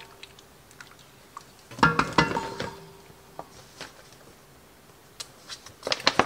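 A spoon knocks against the rim of an enamelled cast-iron pot about two seconds in, with a brief ringing clink. Near the end comes a quick rustle and crinkle as a bag of shredded cheese is handled and opened.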